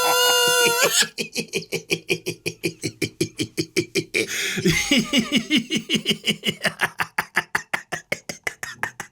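Cartoon sound effects: a held steady tone that cuts off about a second in, then a rapid, even stutter of beatbox-like pulses, about five or six a second, with a falling swoop near the middle.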